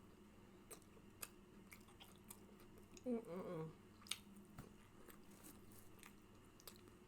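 A person chewing fast food close to the microphone, with wet mouth smacks and clicks scattered through, and a short voiced sound from the eater about three seconds in.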